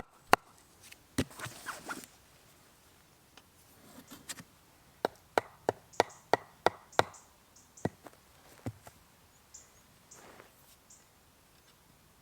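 Sharp clicks and knocks of objects being handled, a quick run of about seven in the middle, with a few faint high chirps.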